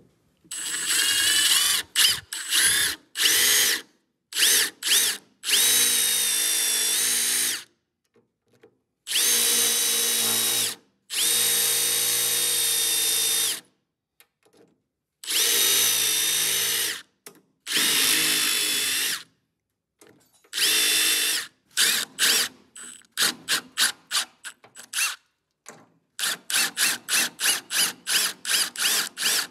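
Cordless drill boring out spot welds along the sheet-steel seam of a Porsche 914 fender, run in stops and starts: several steady runs of one to two and a half seconds, then a quick series of short trigger blips, about three a second, near the end.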